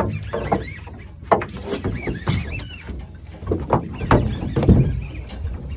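Small fishing boat underway: a steady low rumble with irregular sharp knocks and clacks from the hull and fishing gear, and a few short arching calls.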